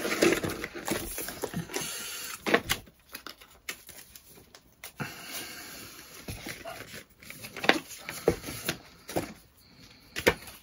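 Cardboard and paper packaging of a MacBook Pro box being handled: irregular rustling and scraping of card, with scattered light taps and clicks as the white card documentation sleeve is lifted out and opened.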